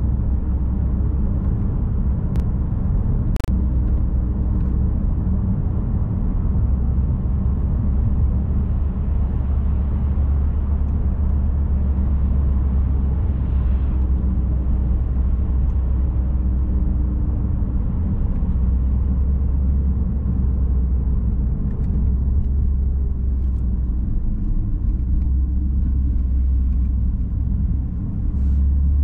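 Car driving at a steady pace: a continuous low engine hum and tyre and road rumble. There is a light click about three seconds in and a short dip and swell in the engine note near the end.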